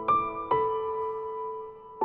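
Slow background piano music: two notes struck in the first half-second, then left ringing.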